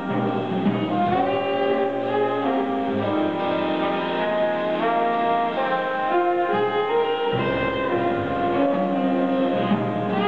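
Jazz big band playing: the saxophone, trumpet and trombone sections sound chords together over piano, guitar and upright bass.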